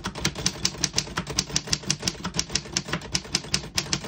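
Keys of a 1933 Underwood 4-bank portable typewriter being typed at a steady clip, a rapid train of sharp typebar strikes, several a second, with no bell at the line's end.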